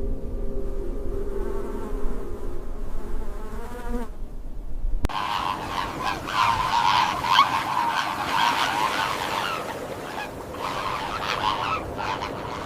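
Sustained soft music tones, then about five seconds in a sudden cut to the dense, continuous calling of a large flock of birds.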